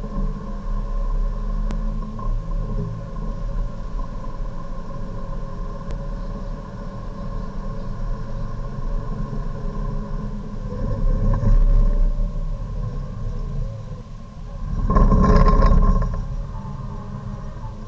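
Hyundai Avante Cup race car's engine heard from inside the cockpit, running at high revs under full throttle with a gear change, then falling away under hard braking. A short loud burst about fifteen seconds in is the loudest sound.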